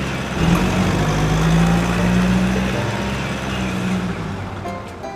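A vehicle engine running steadily, a low hum with a hiss over it, fading away about four to five seconds in.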